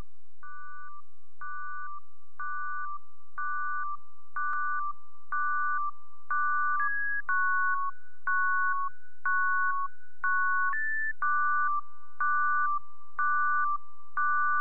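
Background music: a simple electronic melody of clean, beep-like synthesizer tones stepping between two or three pitches, a new note about once a second, each starting with a click.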